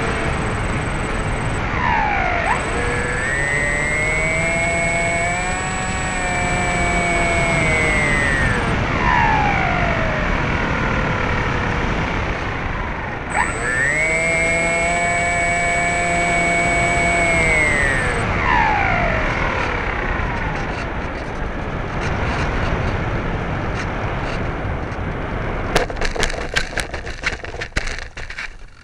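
Electric motor and propeller of an RC motorized glider, heard from on board, whining up in pitch as the throttle is opened, holding, then dropping as it is throttled back, twice over, with air rushing past. Near the end a quick run of knocks and scrapes as the plane touches down and slides on dirt, after which the sound drops away.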